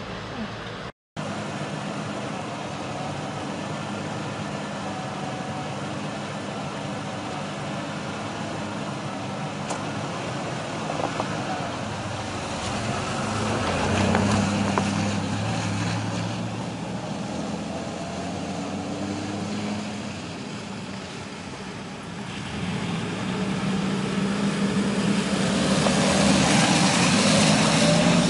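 Pickup trucks driving past on a snow-covered, slushy road, tyres hissing through the wet snow over the engine noise. One passes close about halfway through, and another grows louder near the end.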